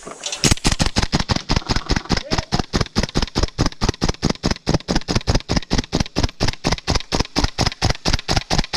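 Airsoft rifle firing a long, rapid string of evenly spaced shots, about six a second, for roughly eight seconds.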